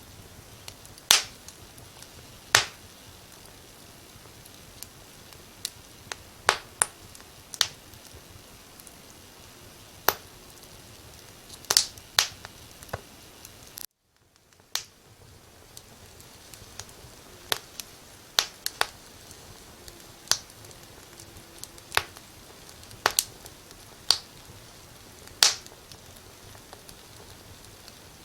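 Wood fire crackling in a fireplace: irregular sharp pops and snaps over a steady low hiss. About halfway through, the sound cuts out briefly and fades back in.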